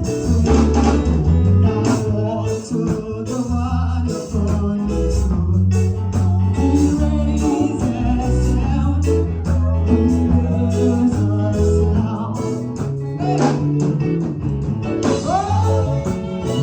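Gospel worship band music with singing, carried by a strong bass line.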